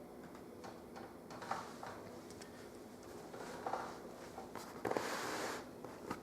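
Light clicks and small scrapes of a screwdriver and hands working screws out of a laptop's screen assembly, with a louder scraping rustle lasting about a second, about five seconds in.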